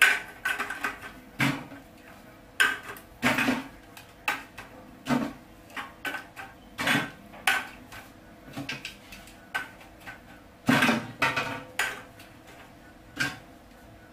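Aluminium soda cans clanking as they are set one on top of another to build a tall single-column tower, with sharp metallic clinks at an irregular pace of about one a second.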